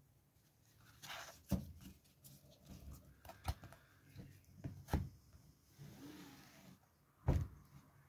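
Handling sounds from a paperback book and a deck of cards being moved and set down on a towel-covered table: several short sharp taps, the loudest near the end, between soft rustling.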